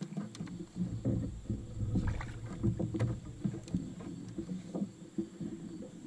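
Irregular knocks, thuds and rubbing on a kayak as a caught smallmouth bass is handled, lifted and held over a measuring board.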